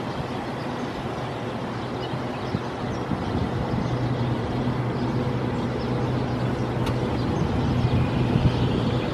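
Car on the move: steady engine and road noise heard from inside the cabin, with a low hum, getting slightly louder through the stretch.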